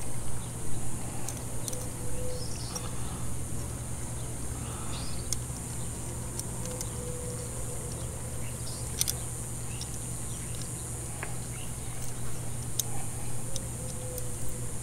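Scattered short metal clicks and taps from a ratcheting combination wrench and bolt being worked by hand, over a steady low hum and a steady high hiss.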